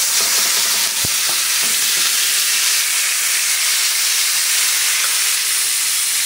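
Chopped kimchi and its juice sizzling steadily in a hot frying pan, a loud even hiss of frying, as it is stirred with a utensil; one light knock about a second in.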